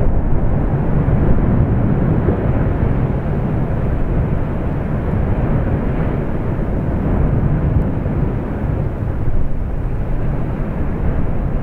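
Steady low rumbling of an erupting volcanic vent as lava churns in its crater, an even noise with no separate bursts.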